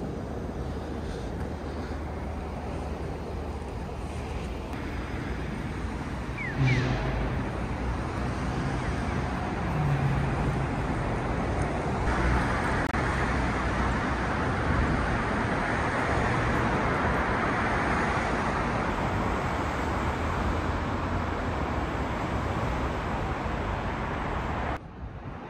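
Road traffic on a city street, with vehicles passing steadily. The noise grows louder about halfway through, and there is a brief louder sound about seven seconds in.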